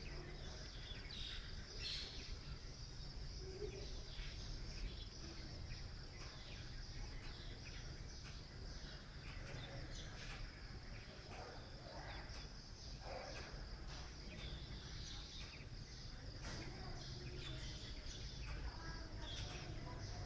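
Steady high-pitched insect chirring with many short bird chirps and calls scattered through it, over a low steady rumble.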